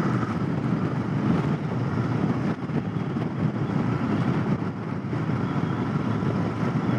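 Royal Enfield Continental GT 650's parallel-twin engine running steadily while riding, mixed with wind noise on the microphone.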